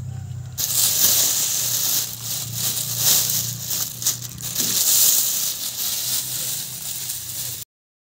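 Thin plastic bag crinkling loudly and irregularly as a hand rummages through the shredded food inside it, over a low steady hum. It cuts off suddenly near the end.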